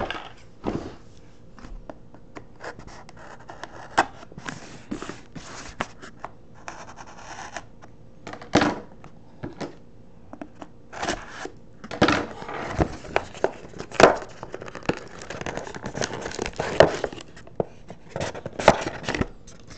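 Handling a cardboard trading-card box and its contents: irregular scrapes, rustles and sharp clicks, with a few longer rustling stretches.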